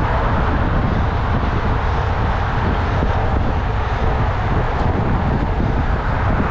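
Steady wind rush over the microphone of a camera on a road bike riding fast, mixed with the roar of road traffic passing alongside.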